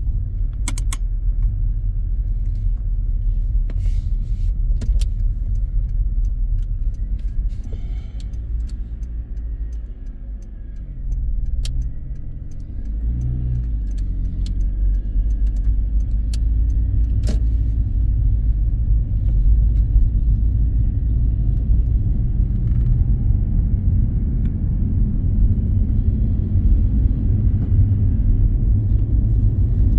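Car driving, heard as a steady low rumble of engine and tyres on a damp road. It eases off and goes quieter about a third of the way in, then builds again as the car picks up speed. A few sharp clicks sound in the first half.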